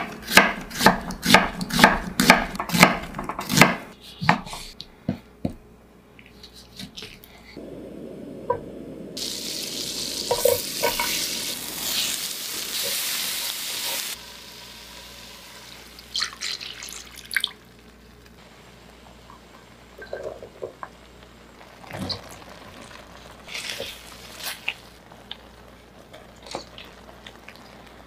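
A kitchen knife cutting an onion on a wooden cutting board, a quick run of sharp chops about three a second for the first four seconds. Later, a few seconds of steady frying sizzle as chicken and onion cook in a pan, which cuts off abruptly. Then quieter scattered clicks and scrapes of stirring in the pan.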